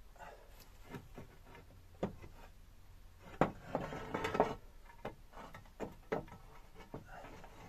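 Clay roof tiles being shifted by hand from underneath: irregular knocks and clinks of tile against tile and against the wooden battens, with a denser burst of rattling and scraping about three and a half seconds in.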